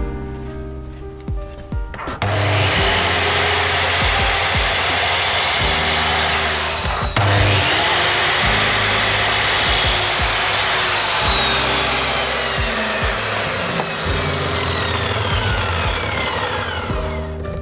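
Power miter saw starting up and cutting through a thin strip of pallet wood, with the motor's high whine over the rasp of the cut. It runs in two stretches with a brief break about seven seconds in, and the second stretch ends in a long falling whine as the blade spins down. Background music plays underneath.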